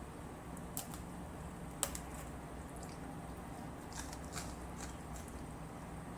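Scattered small clicks and smacks of eating, about half a dozen in a few seconds, over a low steady hum.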